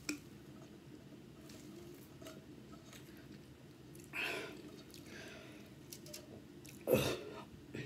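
Quiet mouth sounds of eating and drinking: a sip of carbonated drink through a straw, then soft chewing. There is a short noisy burst about four seconds in, and a louder sudden noise near the end.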